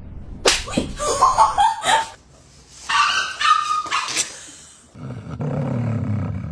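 A dog barking and yipping in two loud flurries, about half a second in and again around three seconds in, followed by a lower, steadier noise near the end.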